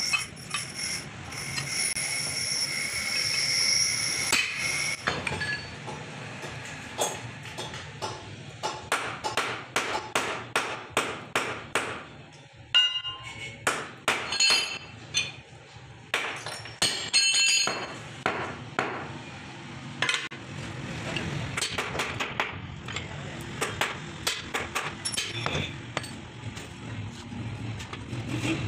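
Hammer blows on steel crankshaft parts of a 200cc CNG auto-rickshaw engine during crank and connecting-rod fitting. A ringing metallic tone in the first few seconds gives way to a run of sharp strikes, about two to three a second. Past the middle, these turn to lighter clinks and knocks.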